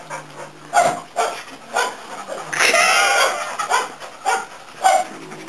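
A dog barking at a cat: a series of short, sharp barks spaced roughly half a second to a second apart, with one longer wavering cry about halfway through.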